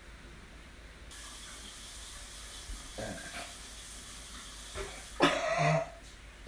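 Bathroom sink tap turned on about a second in, water running steadily into the basin. Near the end, one loud retching sound lasting about half a second from the person being sick over the sink.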